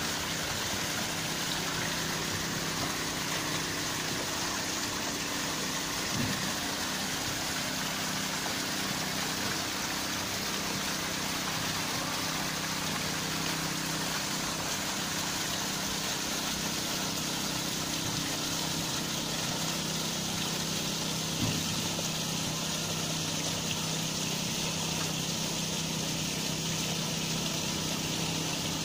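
Water from a rock fountain splashing steadily into its pond, over a steady low hum, with two faint knocks.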